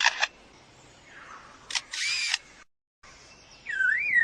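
Lyrebird mimicking a camera: sharp shutter clicks and a short motor-drive whir. Near the end it switches to a warbling car-alarm call that rises and falls about twice a second.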